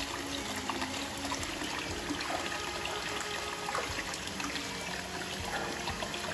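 Hot spring water pouring from a bamboo spout into a rock-lined bath: a steady splashing trickle.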